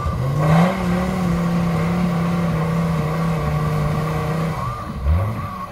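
Modified GAZ-69 trial truck's engine revved hard and held at high revs under load as the truck climbs a steep dirt slope, then dropping off about four and a half seconds in, followed by one short rev near the end.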